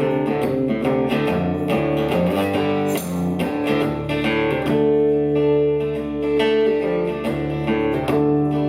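Live band music: an instrumental break between sung verses, led by guitar with strummed chords and long held notes.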